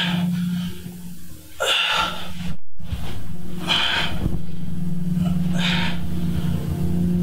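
Forceful exhaled breaths about every two seconds, one with each reverse-crunch rep, over a steady low hum. The sound cuts out completely for a moment about two and a half seconds in.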